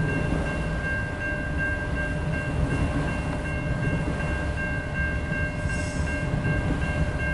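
Long CN freight train of autoracks and manifest cars rolling past at a grade crossing, a steady low rumble of wheels on rail. Over it the crossing's warning bell rings steadily.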